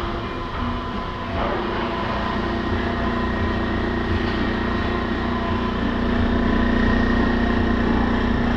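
A/C service machine's vacuum pump running steadily, evacuating a car's A/C system as the gauges pull down toward zero. There is a click about a second and a half in, after which the steady hum is stronger.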